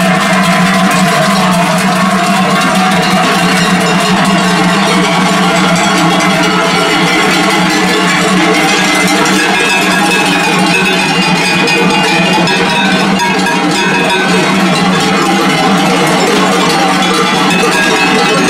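Many cowbells clanging at once in a dense, steady jangle, swinging on the necks of cattle as the herd walks past.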